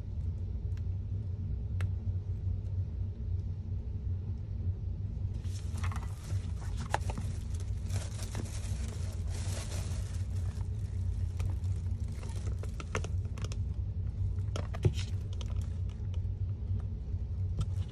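Paper and plastic sheets rustling and crinkling as they are handled, with light clicks, starting about five seconds in, after a few faint clicks from the metal binder rings. A steady low hum underlies it all.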